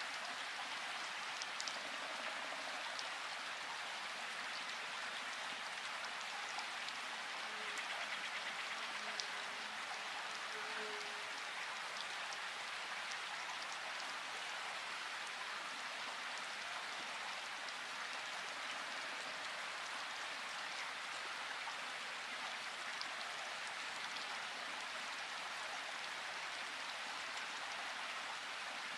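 Steady hiss with scattered faint ticks, even throughout.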